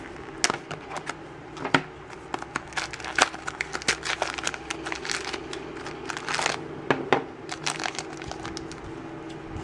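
Plastic toy packaging being opened by hand: scissors snipping and a small plastic Shopkins blind basket being pried open, giving a run of sharp clicks and crackles. Later comes the crinkle of the yellow plastic blind bag from inside the basket.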